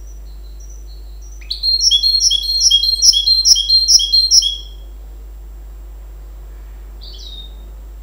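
Goldfinch × canary hybrid (mule) singing: a few soft high notes, then a loud run of repeated descending notes, about three a second, for some three seconds, and a single short call near the end.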